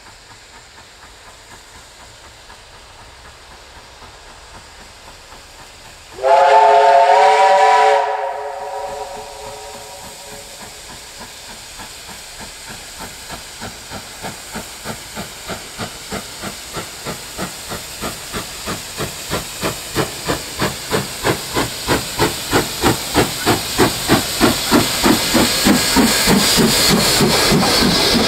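NSWGR C35-class steam locomotive 3526 sounds its chime whistle once, a loud chord of several notes held for about two seconds. Then its exhaust beats come in, about two and a half a second, growing steadily louder as it approaches and passes, with a rising hiss of steam near the end.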